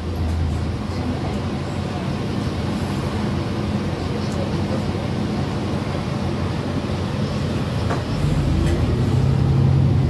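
City bus engine running with road noise, heard from inside the cabin as a steady low drone. About eight seconds in the engine note rises and grows louder.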